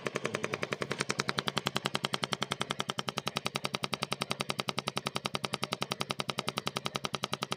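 Rapid, even ticking, about a dozen sharp clicks a second, a little louder from about a second in, from a car's damaged charcoal canister (EVAP) pipe with the engine running: the abnormal noise of a damaged or rodent-bitten canister pipe.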